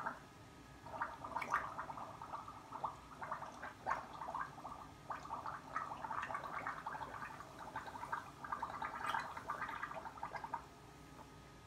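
A man gargling a mouthful of whisky with his head tilted back to numb a sore throat, one long gargle that starts about a second in and stops shortly before the end.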